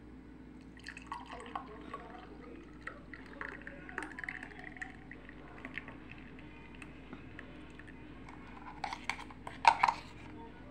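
A thick, frothy blended drink poured from a mixer-grinder jar into a glass tumbler, splashing as the glass fills. A few sharp knocks near the end are the loudest sounds.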